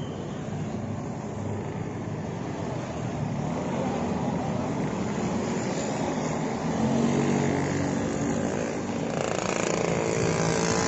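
Bus engine running with steady low engine tones, growing louder as it draws near.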